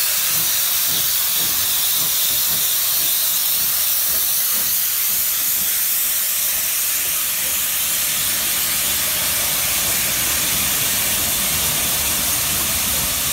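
Rebuilt Bulleid West Country class steam locomotive 34027 Taw Valley moving off slowly, steam hissing loudly and steadily from its open cylinder drain cocks, with faint low exhaust beats under the hiss.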